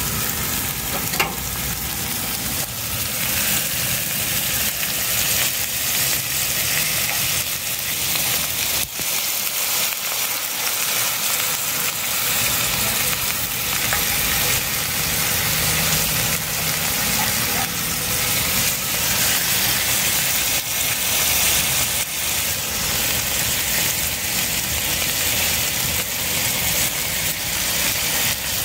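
New York strip steaks searing in oil on a hot propane flat-top griddle, with asparagus alongside: a steady sizzle. One sharp tap about a second in.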